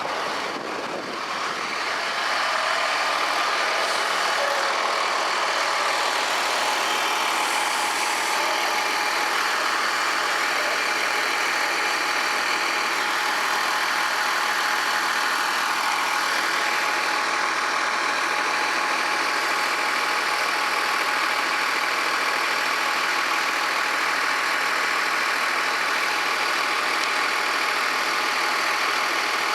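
Cummins ISC inline-six diesel engine of a Blue Bird CS transit bus running steadily, heard from inside the bus. The sound grows louder about two seconds in, then holds at an even level.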